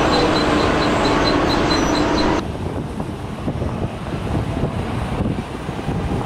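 Hidromek HMK 640 wheel loader's diesel engine running under load, with a high rapid pulsing tone over it. A little over two seconds in the sound cuts to a quieter, rougher engine-and-gravel rumble as the loader drives across the yard.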